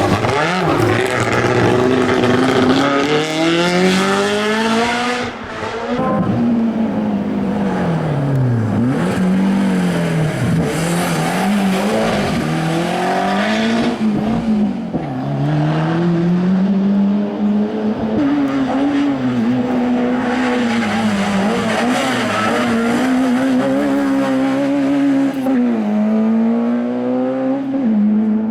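Historic racing car engine revving hard, its pitch climbing and dropping over and over as the driver accelerates, shifts and lifts, with tyres squealing at times.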